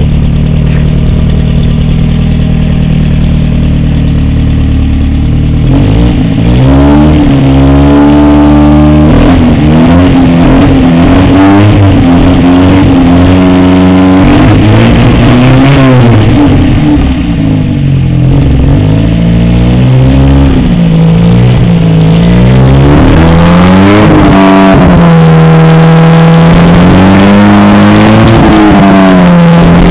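Fiat 128's four-cylinder engine, just tuned up, running loud and steady for about six seconds, then revved up and down over and over in quick blips.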